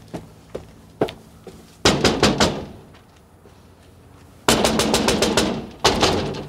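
Fists banging on a front door: a burst of about five quick blows, then after a pause a longer, faster flurry of pounding.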